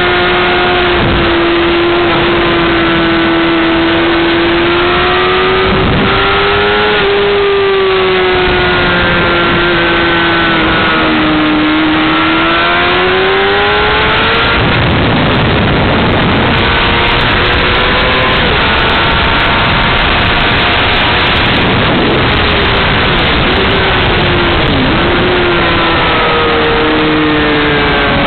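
Honda CBR600RR's inline-four engine at high revs on track, its pitch climbing and dropping again and again with throttle and gear changes. Heavy wind rush over the microphone grows stronger in the middle stretch.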